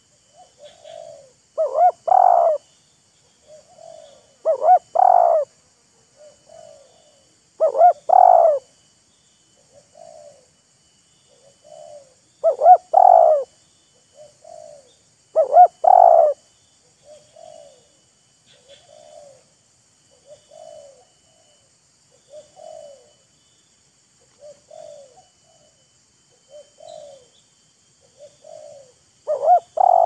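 Spotted doves calling back and forth: loud three-part coos, six in all, come every few seconds, with fainter short single coos repeating steadily in between. These are a decoy dove and a wild dove answering each other.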